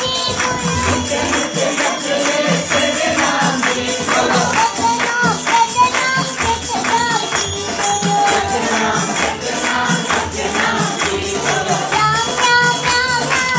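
A song with a voice singing over instrumental music, with tambourine-like jingle percussion keeping a steady beat.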